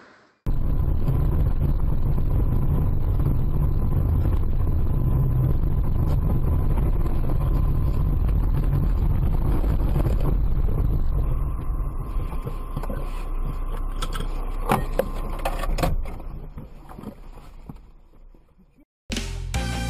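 Steady low rumble of a moving car, engine and road noise, that eases off about eleven seconds in. A few sharp knocks come near fifteen seconds, then the rumble fades out.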